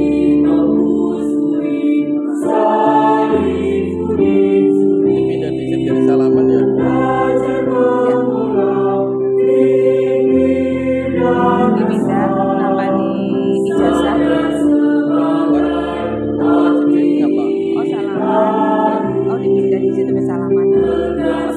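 A mixed choir of women's and men's voices singing in harmony, in phrases of long held chords with short breaks between them.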